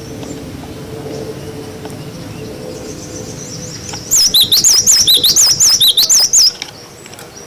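Cinereous tit (glatik batu) giving its 'wucit' call: about four seconds in comes a quick run of roughly six high, zigzagging notes lasting about two and a half seconds, with only a faint low hum before it.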